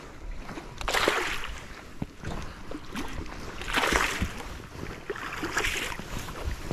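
Hooked smallmouth bass thrashing and splashing at the surface beside the boat, in several splashy bursts, the biggest about a second in and around four seconds.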